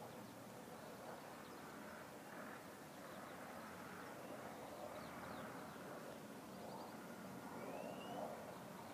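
Faint outdoor background noise with a few short, high bird chirps and trills, including a brief rising chirp near the end.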